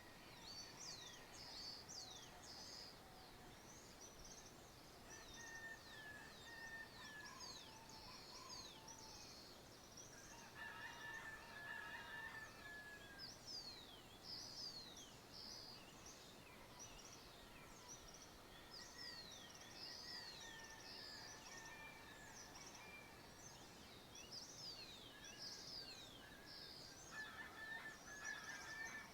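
Faint countryside dawn chorus: many small birds chirping continuously in quick, high, falling notes, while a distant rooster crows three times, at about five seconds, ten seconds and near the end.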